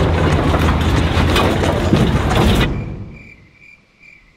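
Wrecked Mazda sedan being dragged through brush on the forest floor: loud scraping and crunching with knocks over a low rumble, which cuts off abruptly about two and a half seconds in. After it comes a faint high chirp, repeating evenly about twice a second.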